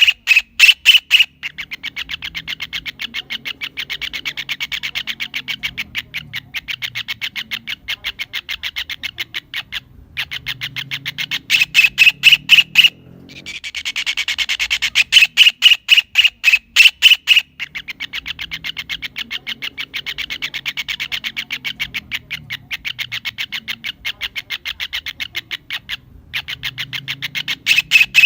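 Kingfisher (cekakak) calling: long runs of rapid repeated notes, about eight to ten a second, that swell into louder stretches three or four times.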